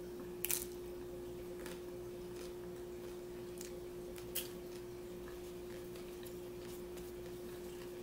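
Quiet eating sounds of someone chewing a taco, with a few faint mouth clicks and a lip smack a little after four seconds as a finger is licked. Under them runs a steady low hum.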